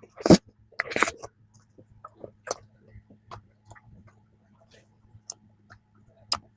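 Close-up eating of a flaky strawberry danish: two sharp crunchy bites, about a third of a second in and about a second in, followed by quieter crackly chewing clicks.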